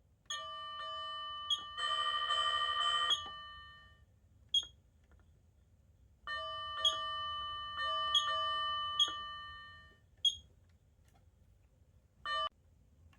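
Electronic fire-bell (keishō) tone from a Patlite SAP-500FBVZ siren amplifier: metallic bell strikes, two of them left to ring for several seconds each, with single sharper strikes between and a short ring near the end.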